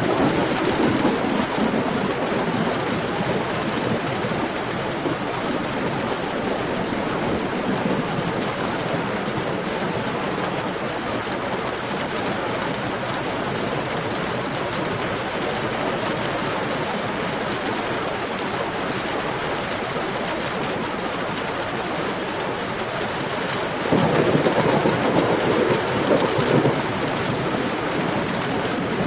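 Heavy rain falling steadily, swelling louder with a deeper sound briefly at the start and again for about three seconds near the end.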